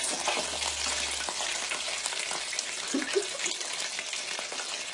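Hot oil sizzling steadily in a pan as food deep-fries, with a dense crackle of small pops.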